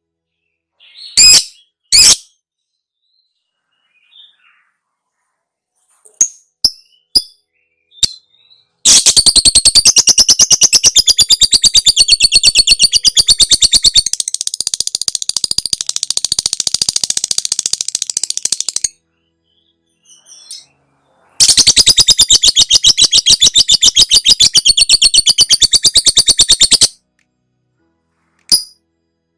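Lovebird ngekek: a few sharp high chirps, then two long bouts of rapid, continuous chattering trills. The first bout lasts about ten seconds and eases off a little halfway through; the second lasts about five seconds. A couple more chirps follow near the end.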